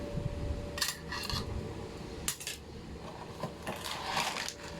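Cutlery clinking and scraping against plates and bowls as a meal begins, a few short clatters.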